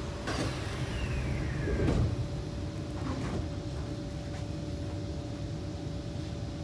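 Kawasaki C151 metro train's saloon doors sliding shut: a click, a falling whine as they close, then a solid thud as the leaves meet about two seconds in. After that a steady hum from the train's onboard equipment over a low rumble.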